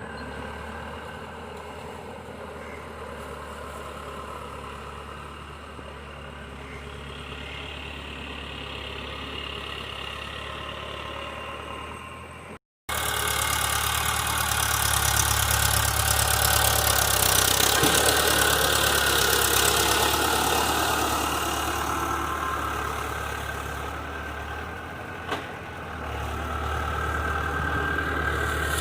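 Tractor engine running steadily while ploughing, louder and busier in the second half after a cut, with a brief click near the end.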